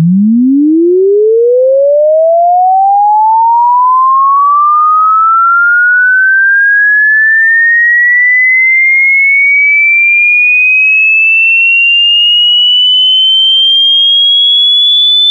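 Electronic sine-wave test tone sweeping steadily upward in pitch, from a low hum to a high whistle, climbing fastest at the start and then more gradually.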